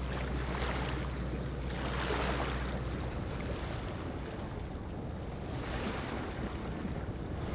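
Sea water washing and rushing along the hull of a sailboat under way, swelling and easing in several surges. A low steady hum sits under it for the first three seconds.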